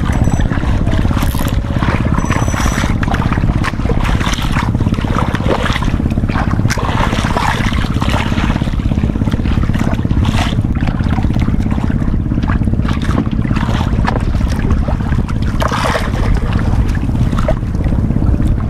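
A boat's engine running steadily, with choppy waves slapping and splashing against the hull and outrigger every few seconds.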